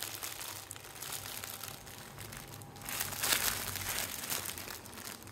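Clear plastic bags of diamond-painting drills crinkling as they are handled and turned over, louder for a moment about three seconds in.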